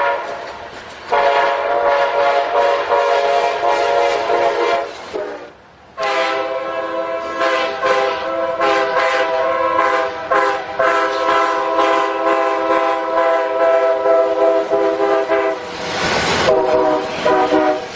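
Locomotive air horn sounding several notes together as a chord: a blast of about four seconds, a short break, a long blast of about ten seconds, then a brief rush of noise and another blast near the end.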